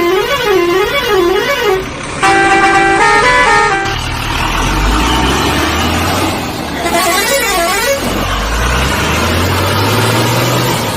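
Toy-vehicle sound effects: a warbling siren-like tone rising and falling about twice a second. A stepped musical horn tune follows about two seconds in, then a steady engine rumble that rises slightly in pitch near the end.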